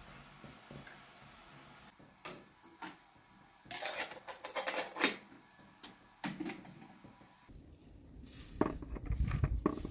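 Small stainless-steel teapot and its lid clinking and rattling, a quick cluster of sharp metallic clinks about four seconds in, with a few lighter clicks before and after. Near the end, rustling and handling noise.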